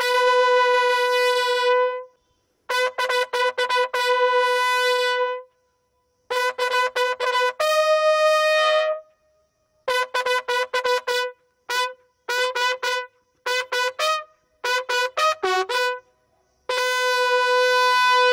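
A military bugle call: phrases of long held notes and quickly repeated notes, with short pauses between the phrases.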